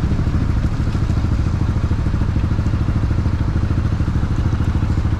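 Small engine of a homemade vehicle idling steadily, with a fast, even putter.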